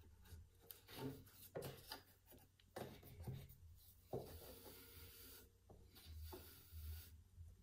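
Faint rustling and rubbing of wool yarn being pulled through the warp strings of a frame loom, with a few light knocks.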